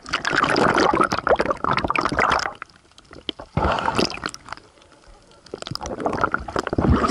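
Water splashing and gurgling around the camera as a spearfisher dives beneath the surface, then churning bubbles underwater. It comes as three loud stretches of crackling water noise: a long one at first, then shorter bursts near the middle and the end, with quieter gaps between.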